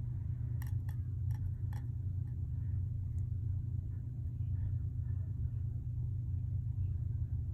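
A steady low hum with four faint light clicks about a second in.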